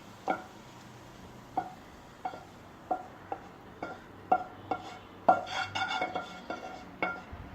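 A metal spoon or spatula knocking and scraping against a cooking pan as stir-fried corn is scooped out into a bowl. It makes a string of sharp, ringing clinks about every half second, busier and scrapier around five seconds in.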